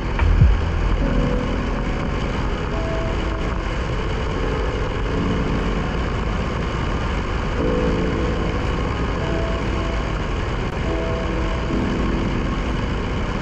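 KTM Duke 390 single-cylinder motorcycle cruising at a steady speed, with wind rushing over the microphone.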